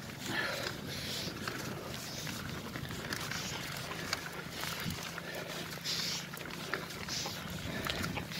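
A mountain biker breathing hard while pedalling uphill, a heavy breath every second or two, over a low steady hum.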